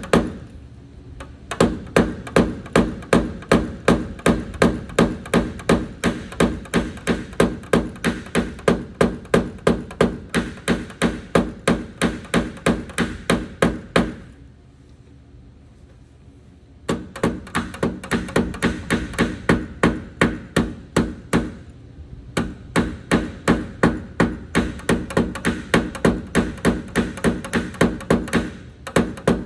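Hammer tapping a knockdown punch against a 2021 Silverado's aluminum liftgate, working the metal down around a glue-pull tab in paintless dent repair. The taps come fast and even, about three a second, and each rings briefly. They stop for about three seconds around the middle, then resume.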